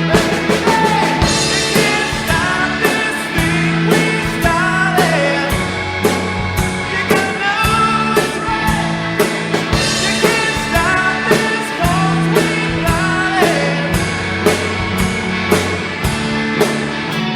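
A rock band playing live: a drum kit keeps a steady beat under sustained bass notes and electric guitar, with a melody line gliding over the top.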